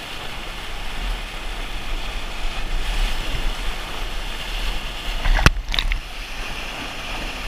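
Rushing whitewater churning around an inflatable raft running a rapid, a steady noisy rush with a low rumble on the microphone. A brief sharp hit, the loudest moment, comes about five and a half seconds in.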